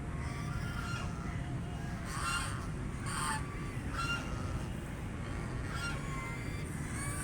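Ducks quacking: a series of short, nasal calls about once a second, over a steady low background noise.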